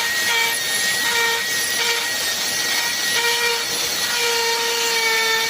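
Electric power drill running continuously under load, boring a hole into the wall for a mounting bracket, with a steady whine and a lower tone that comes and goes as the bit bites.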